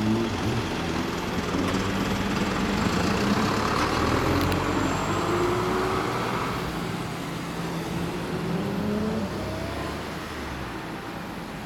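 Honda CB400 Super Four's inline-four engine, fitted with an aftermarket DEVIL exhaust, pulling away through traffic, its revs rising twice before the sound fades toward the end. Traffic noise runs underneath.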